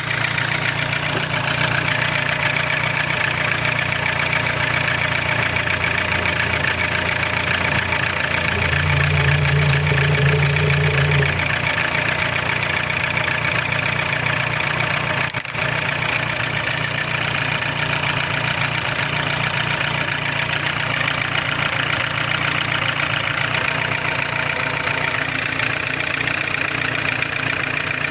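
Lada VAZ-11186 8-valve 1.6-litre four-cylinder engine idling with a knock whose cause the owner does not know. The engine note swells louder for a few seconds around ten seconds in, then settles back to a steady idle.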